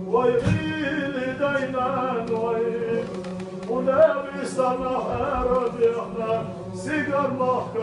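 Unaccompanied male chanting of a nazm, an Islamic devotional song, in long melodic phrases with held notes.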